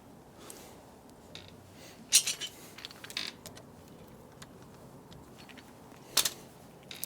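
Small metal clinks and clicks of deadbolt lock parts being handled and fitted together: a cluster about two seconds in, another around three seconds, and one sharp click near the end.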